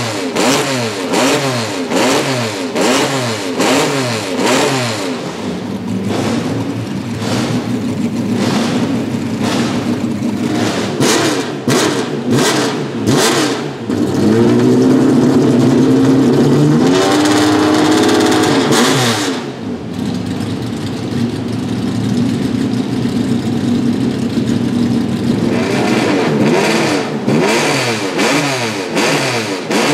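Cosworth GAA 3.4-litre DOHC V6 of a 1974 Ford Capri RS 3100 Group 2 race car warming up, its throttle blipped again and again so the revs rise and fall. About halfway through it is held at higher revs for about five seconds, the loudest part, then drops back to a steadier idle before the blipping starts again near the end.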